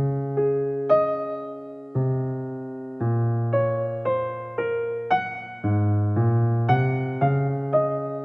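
Background piano music: a gentle, slow solo piano piece, with a low bass note struck about once a second and melody notes over it, each note ringing and fading.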